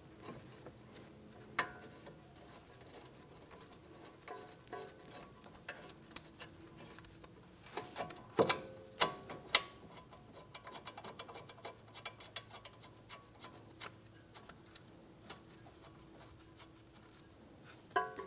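Light metallic clicks and taps of steel bolts and the cast-iron brake caliper being handled while the caliper bracket bolts are threaded in by hand, with a cluster of louder clicks a little before the middle.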